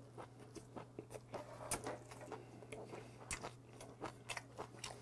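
Close-miked chewing of a mouthful of gwamegi (semi-dried Pacific saury) wrapped with scallion and garlic: soft wet clicks and light crunches, several a second, irregular. A steady low hum runs underneath.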